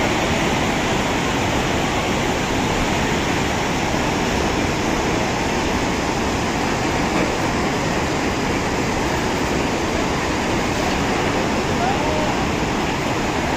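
Muddy floodwater of a river in spate after a cloudburst, rushing in a steady, dense roar of churning water.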